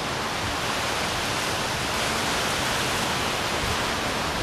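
Hurricane wind and rain: a steady, even rush of noise through thrashing palm trees.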